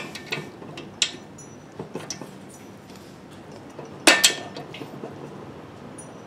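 Steel bolts clinking and tapping against the engine's motor mount and frame as they are pushed through the mount holes. There are a few light taps, then a louder cluster of metallic clinks with a brief ring about four seconds in.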